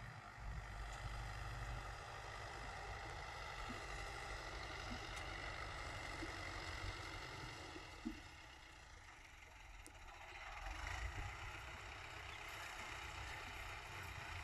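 Fiat 480 tractor's diesel engine running steadily under load as it pulls a cultivator through tilled soil, dipping briefly in loudness about two-thirds of the way in before rising again.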